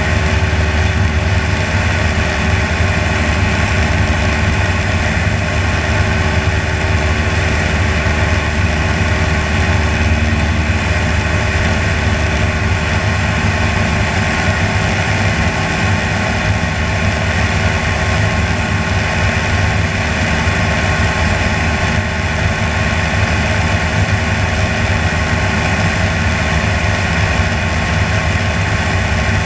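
Propeller aircraft's piston engine and propeller running steadily in cruise flight, a constant loud drone with a strong low hum.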